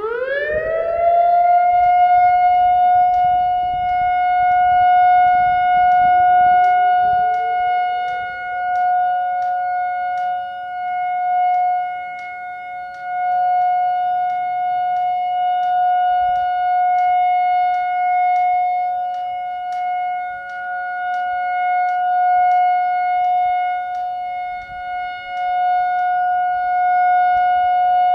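Whelen WPS-2760 electronic outdoor warning siren starting up on a test: its tone sweeps up quickly and then holds a steady high pitch. A few seconds in, a second, lower tone slides up and joins it, so the two hold together as a steady chord, the loudness swelling and dipping slowly every few seconds.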